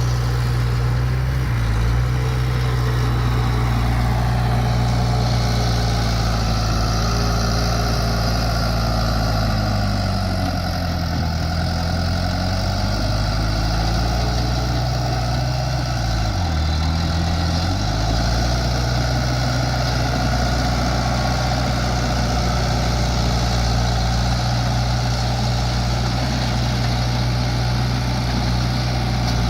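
Bulldozer's diesel engine running steadily, its engine speed sagging and recovering twice: once near the middle and again about two-thirds of the way through.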